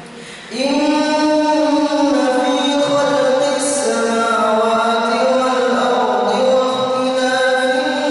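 A solo male voice reciting the Quran in a slow, melodic chant, with long held notes that bend gently in pitch. It pauses briefly for breath at the start and comes back in about half a second in.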